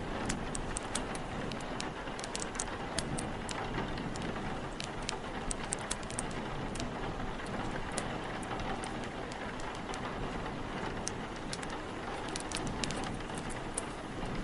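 Steady rain with a wood fire crackling over it in sharp, scattered pops, thickest in the first few seconds and again near the end.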